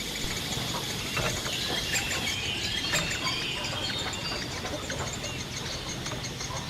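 Small birds chirping in short calls against a steady outdoor background, with a few light clicks.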